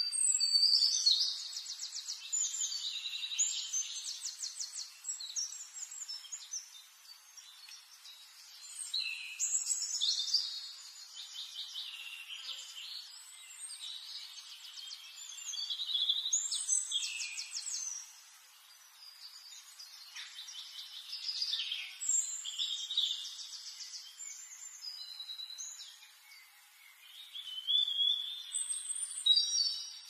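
Small aviary finches singing and calling: high phrases of rapid trilled notes that come in bursts every five or six seconds, each lasting a second or several.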